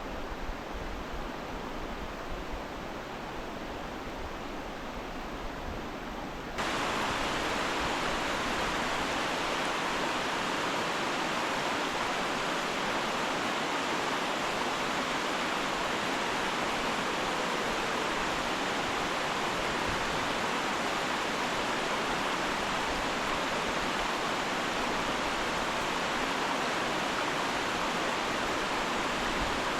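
Steady rush of falling water from a waterfall, stepping up suddenly to a louder, brighter rush about six and a half seconds in.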